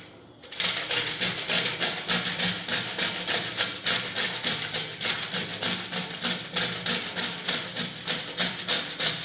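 Dried coconut half grated on the medium holes of a stainless-steel box grater: rapid, even rasping strokes, about three a second.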